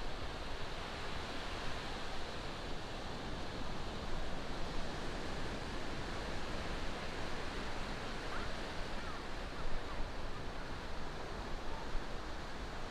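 Ocean surf: a steady wash of waves breaking on the beach.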